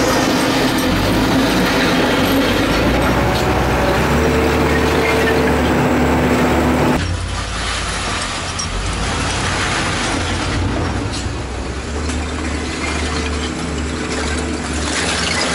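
Wheel loader's diesel engine running under load, with a steady hydraulic whine as the bucket works. The sound drops in level about seven seconds in, then the engine and whine pick up again as the loader drives up and lifts a full bucket of broken concrete blocks.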